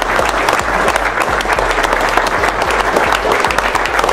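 A room full of people applauding.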